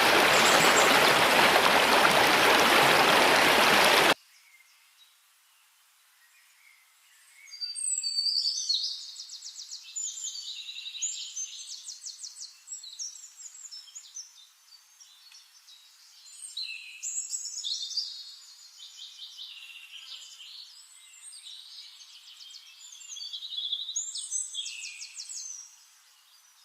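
Rushing stream water for about four seconds, cutting off suddenly. After a short pause, small songbirds sing high, rapid trilled phrases again and again.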